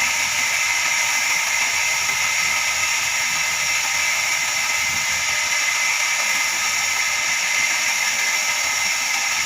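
Horizontal band sawmill running, its blade sawing through a log with a steady high-pitched hiss and several steady whining tones over it.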